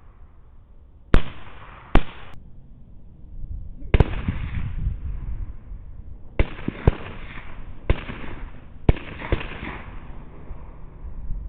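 Rifle shots, about eight at irregular intervals, some in quick pairs, each trailing off in a short echo.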